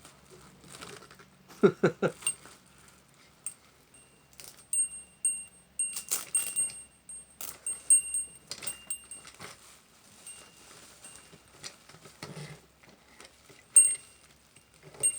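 Small metal bell of a bell-ringing Santa toy jingling lightly and unevenly as the toy is handled, in short high rings that come and go. Clicks and rustles of plastic and packaging are heard with it.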